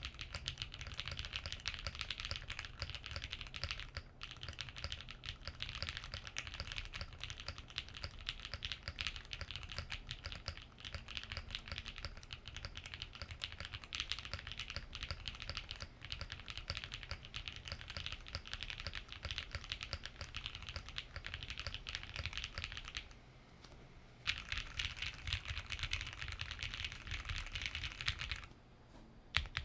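Fast, continuous typing on a mechanical keyboard: lubed KTT Rose linear switches in a GrayStudio Think 6.5 v2 with an FR4 plate and PBT keycaps. The keystrokes pause briefly about 23 seconds in and again near the end.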